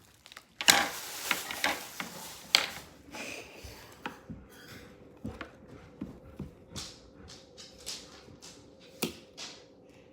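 Packaging and toys being handled and tags snipped off with scissors: a string of short clicks, crinkles and snips, louder in the first few seconds. A faint steady hum comes in about four seconds in.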